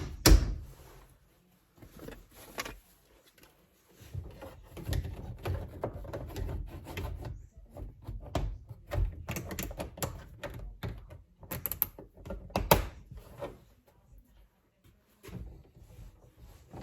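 Interior door trim panel of a 2003 GMC Sierra being pushed back onto the door: a run of sharp clicks, snaps and knocks as the retaining clips seat, with rattling and handling noise in between. The loudest snaps come at the very start and about twelve to thirteen seconds in.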